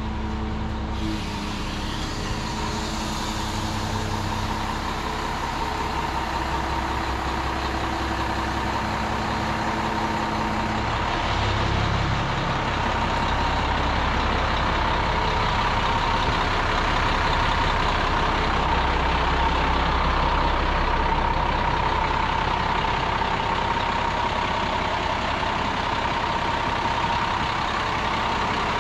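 Front-discharge concrete mixer truck's diesel engine running steadily close by, a continuous rumble with a steady whine over it. The engine note shifts about a third of the way in.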